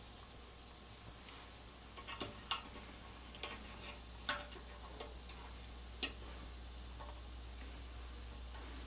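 Light clicks and taps from handling a crimping tool, ring terminals and wire, coming irregularly with the sharpest about two and a half and four seconds in, over a low steady hum.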